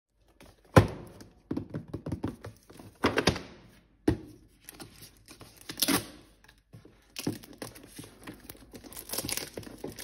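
A cardboard keyboard box being handled on a wooden table. It gives a sharp thunk about a second in, then further knocks and rustling of the packaging as it is moved about and opened.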